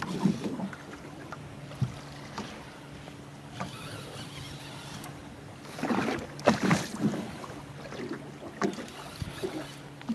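Boat's electric trolling motor humming steadily at a low pitch while holding the boat in the waves. Scattered knocks and short splashy noises come over it, heaviest about six to seven seconds in.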